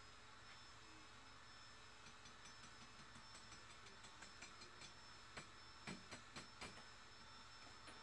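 Near silence with faint, scattered metallic clinks of steel chain and shackles being handled, growing more frequent partway through, with a small cluster of sharper clinks around six seconds in.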